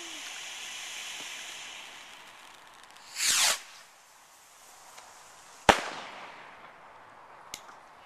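A firework going off: a fading hiss, then a loud whoosh about three seconds in as it launches, and a single sharp bang about two seconds later as it bursts, followed by a couple of faint cracks.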